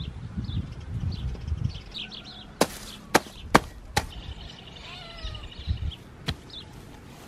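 Sharp blows of a short-handled hand tool striking the ground: four in quick succession about half a second apart, then one more a couple of seconds later. Small birds chirp and trill throughout, and a low rumble fills the first two seconds.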